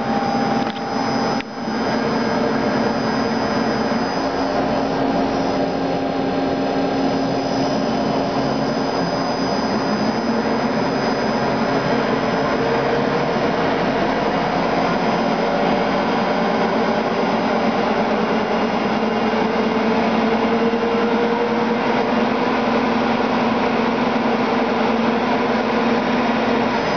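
1986 Nakamura-Tome Slant 1A CNC lathe running with its spindle turning the chuck: a loud, steady machine whir with a low hum. A faint tone slowly rises in pitch partway through.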